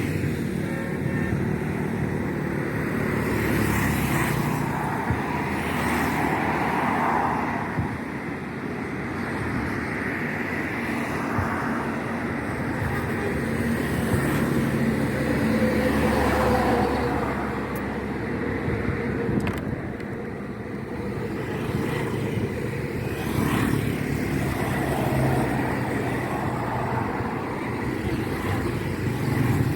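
Steady street traffic noise: a continuous wash of passing vehicle engines and tyres that swells and eases as vehicles go by.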